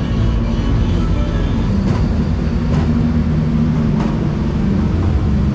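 Steady low rumble of motor traffic, with music playing underneath.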